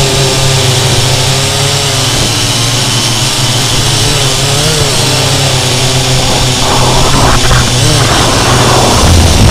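Syma X8C quadcopter's four brushed motors and propellers buzzing steadily, heard up close through a camera mounted on the drone. The pitch wavers up and down with the throttle, and the sound grows louder and rougher from about seven seconds in.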